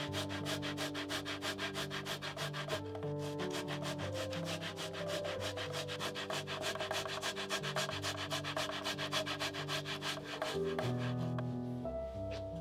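A tomato rubbed fast up and down a stainless steel box grater, a quick run of rasping strokes several a second, with a short pause about three seconds in. The grating stops about ten and a half seconds in, leaving only background music, which plays under it throughout.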